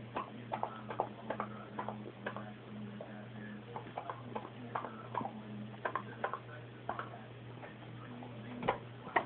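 Bulldog puppy's mouth smacking and tongue clicking as she works at floss in her mouth, a few irregular clicks a second, over a steady low hum.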